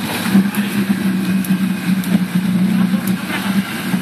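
Quad bike engine running at steady, raised revs while the machine sits stuck deep in swamp water.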